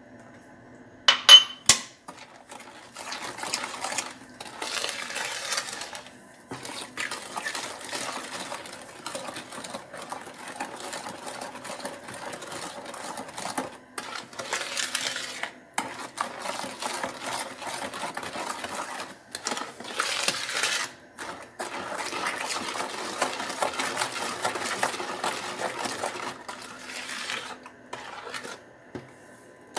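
Metal spoon stirring and scraping around a plastic mixing bowl, beating eggs, sugar, milk and oil into a runny batter, in uneven strokes with short pauses. A few sharp knocks against the bowl about a second in are the loudest sounds.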